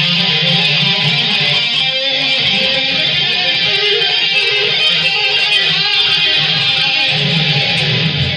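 Jackson Stealth electric guitar with stock Jackson pickups, played continuously through a DigiTech GSP2101 rack preamp into a Hughes & Kettner amp and a Marshall cabinet with Celestion speakers.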